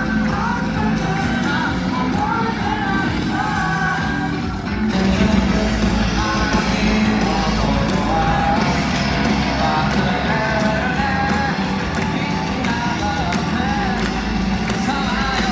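Pop-rock music with singing; the sound dips briefly and then grows fuller and a little louder about five seconds in.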